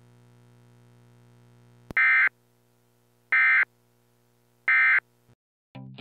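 Three short, loud electronic beeps, evenly spaced about a second and a half apart, over a faint steady low hum. Music with plucked notes starts just before the end.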